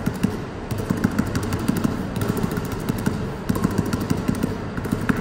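A basketball dribbled hard and low on a hardwood gym floor in a figure-eight between the legs: a quick, steady run of bounces, several a second.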